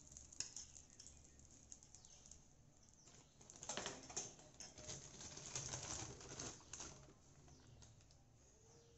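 Ghee sizzling on a hot cast-iron tawa: a soft crackle of many small pops, busiest in the middle.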